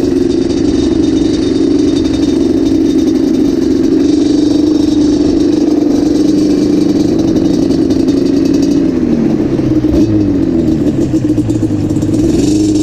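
Yamaha Banshee 350's twin-cylinder two-stroke engine running at steady revs, then easing off about nine seconds in and revving up and down before picking up again near the end.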